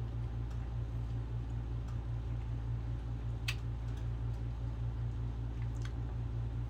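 Steady low background hum with scattered faint clicks of eating, and one sharper click about three and a half seconds in.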